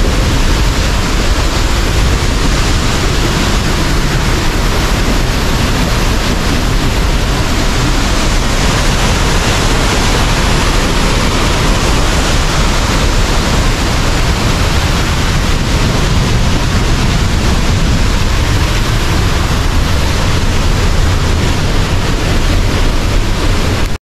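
Loud, steady rushing roar of a waterfall, cutting off abruptly at the end.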